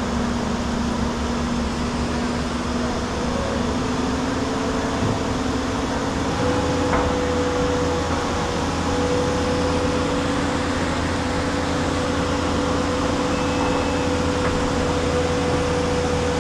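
Steady machine hum under an even hiss, its pitch creeping up a little about five to six seconds in and then holding.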